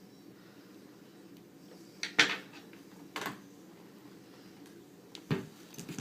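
A few sharp clicks and knocks of small hard parts and tools being handled while screws are taken out of a laptop's display corners, over a faint steady hum. The loudest knock comes about two seconds in, with others about a second later and near the end.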